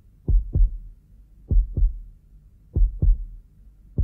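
Heartbeat sound effect: three deep double thumps (lub-dub), one pair about every 1.25 seconds.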